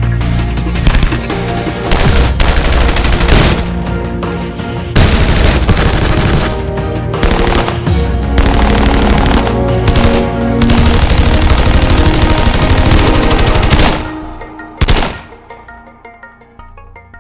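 Submachine guns firing fully automatic in long rapid bursts over a music bed. The firing stops about fourteen seconds in, then one last short burst, then a fading echo.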